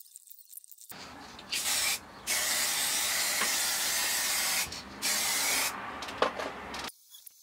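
Aerosol can of gloss varnish spraying in three bursts of hiss: a short one, a long one of about two and a half seconds, then another short one. A sharp click comes near the end.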